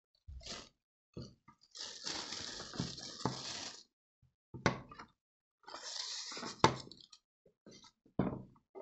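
Unpacking noise: plastic wrapping crinkles in two stretches, with several sharp knocks as the hard plastic base of a Panasonic KX-TGJ322 cordless phone is lifted out of its cardboard box and set down on the table.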